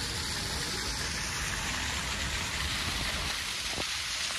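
Small waterfall splashing down a rock face into a pool: a steady rush of falling water.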